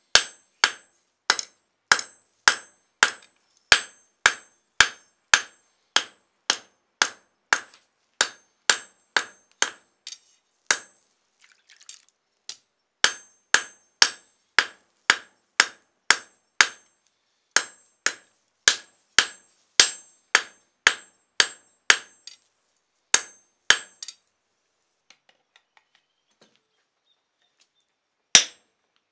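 Hand hammer striking a glowing steel billet on a block anvil, about two to three blows a second with a bright metallic ring, setting a forge weld of high-carbon steel onto mild steel. The blows break off briefly in the middle, stop a few seconds before the end, and one more blow lands near the end.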